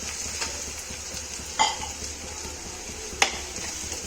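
Onion, ginger and garlic tadka sizzling in hot oil in a frying pan, stirred, with the utensil knocking against the pan twice, about one and a half seconds apart.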